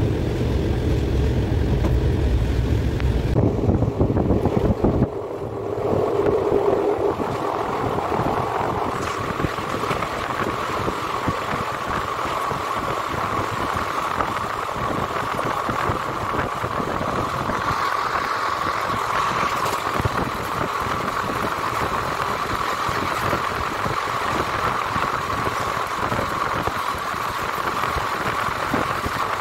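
Steady running noise of a moving passenger train heard from an open coach doorway, with wheels on the rails and rushing air. A heavy low rumble in the first few seconds gives way to a steadier, higher-pitched running sound for the rest.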